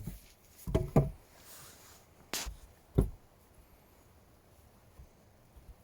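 About five scattered knocks and thumps on wood in the first three seconds, one of them sharp and crisp, then only faint handling noise.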